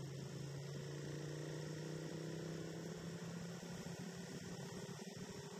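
Motorcycle engine running while riding, heard faint as a low drone whose pitch falls slightly over the first few seconds, then fades out about halfway through.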